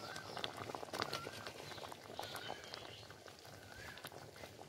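Thick chicken curry simmering in an open pot: faint, irregular clicks and pops of bubbles breaking in the gravy. A short chirp recurs about once a second.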